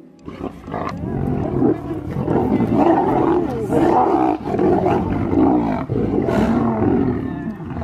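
Several lions snarling and growling at once while squabbling over a zebra kill as they feed: a dense, unbroken tangle of overlapping growls that starts suddenly.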